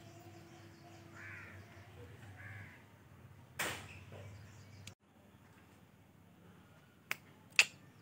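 Outdoor ambience with two faint calls in the first few seconds and a short noisy burst about three and a half seconds in. After a brief dropout, two sharp clicks come near the end, the second the loudest.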